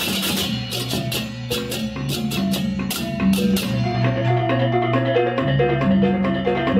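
Background music: a melody of short pitched notes in a mallet-like tone over a bass line, with sharp percussive hits in the first half.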